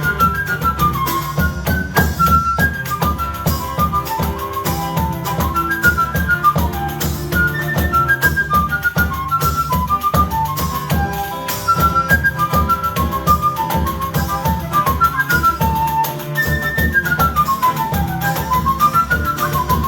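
Flute playing quick, running melody lines in a choro, over a rhythmic accompaniment of guitar and percussion.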